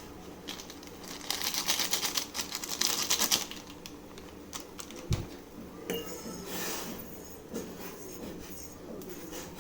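Close-up crunching and chewing of crisp Saffola Oodles ring snacks: about two seconds of rapid crackly crunches, then softer chewing with a single low thump about five seconds in.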